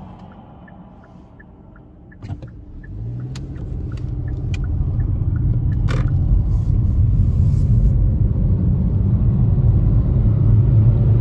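Car pulling away and gathering speed, heard from inside. A light, quick ticking for the first couple of seconds, then a knock, after which the engine and road noise build into a steady, loud low rumble with a few scattered clicks.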